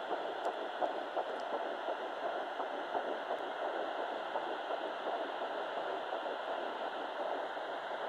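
Home fetal Doppler hissing, with the fast whooshing pulse of a twin's heartbeat at nine weeks six days of pregnancy coming through. The pulse is clearest in the first few seconds.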